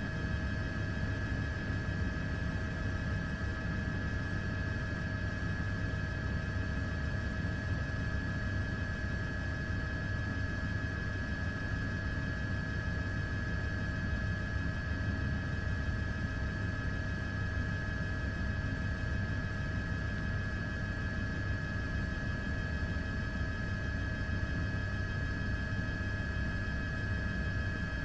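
Steady drone of an aircraft in flight: an even low rumble with a constant high whine above it.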